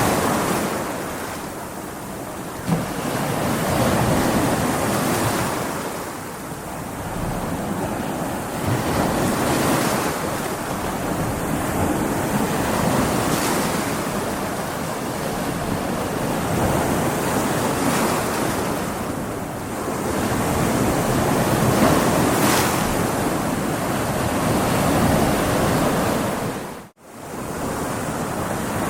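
Stormy sea: waves surging and breaking in swells every few seconds, with wind. The sound drops out for an instant near the end.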